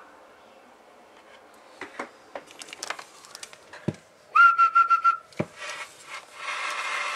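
A steady whistle held for about a second, most likely whistled into the CB radio's microphone to test its sideband transmit output. It falls between two sharp clicks, and a hiss comes in near the end.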